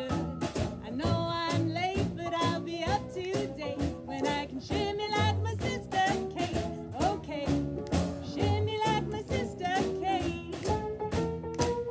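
Woman singing a swing jazz song with a wavering vibrato, backed by piano, upright double bass and a drum kit keeping a steady swing beat.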